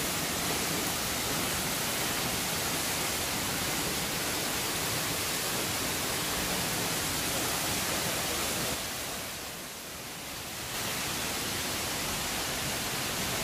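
Waterfall falling onto rocks and into a pool, a steady, even rush of splashing water that goes briefly quieter about nine seconds in.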